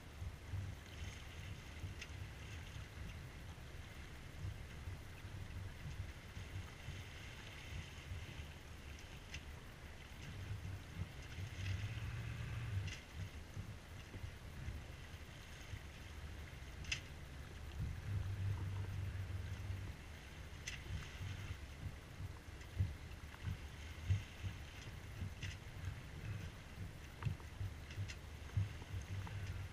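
A C&C Mirage 24 sailboat under sail: water rushing and splashing along the hull over a steady, gusting rumble of wind on the camera microphone, with a few short sharp knocks.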